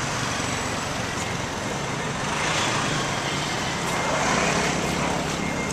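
City street traffic: a steady hum of engines and tyres, swelling as vehicles pass about two and a half seconds in and again about four seconds in.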